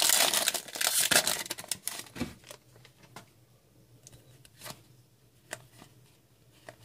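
Plastic wrapper of a hockey card pack being torn open and crinkled for about two and a half seconds. Then a few separate soft clicks follow as the cards are flicked through one at a time.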